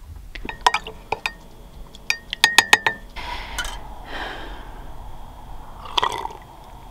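Glass or ceramic dishware clinking several times with a short ringing tone, then liquid pouring for about two and a half seconds, and one more clink near the end.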